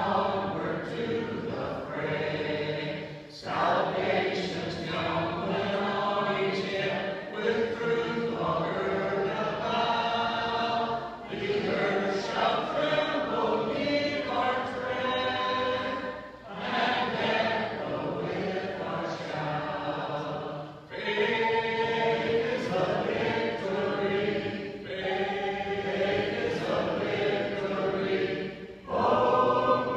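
Small church congregation singing a hymn together without instruments, in long sung lines with brief breathing pauses between them.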